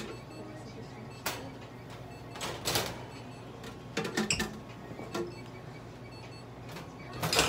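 A brush drawn through a cat's fur: a few short, scratchy swishes at irregular intervals, the last and loudest near the end, over a faint steady hum.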